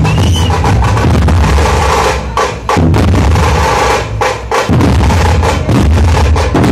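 A Nashik dhol ensemble: many large barrel dhols beaten together with sticks in a loud, fast, driving rhythm. The drumming breaks off briefly twice, about two and a half and about four seconds in.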